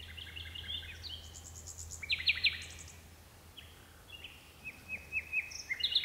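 Nightingale singing in phrases of rapid repeated notes, with three loud strokes about two seconds in and a run of repeated notes near the end.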